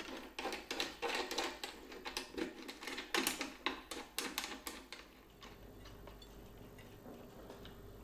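Light, irregular clicks and ticks of speaker cable being fitted into speaker terminals, bare wire ends handled and pushed into the amplifier's binding posts and the subwoofer's speaker-level inputs. The clicking stops about five seconds in, leaving faint room tone.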